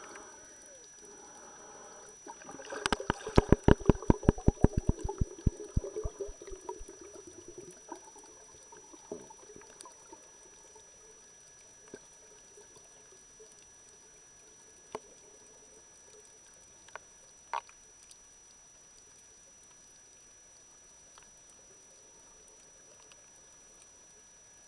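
Water heard through a submerged camera: a few seconds of gurgling with a quick run of sharp clicks, then a quiet steady underwater hiss broken by an occasional single click.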